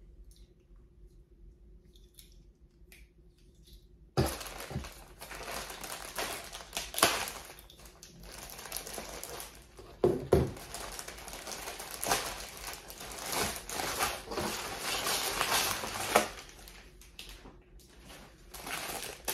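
A clear plastic parts bag full of plastic building bricks, crinkling and rustling as it is opened and handled, with the loose bricks shifting and knocking inside. It starts abruptly about four seconds in and goes on for about twelve seconds, with a few sharper knocks, then eases off and picks up briefly near the end.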